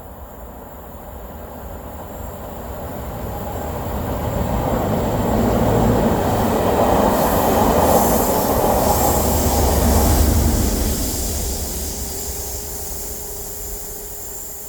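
Colas Class 37 diesel-hauled test train passing, its sound building to a peak about six to ten seconds in and then fading as it goes away, with rail and wheel noise from the coaches.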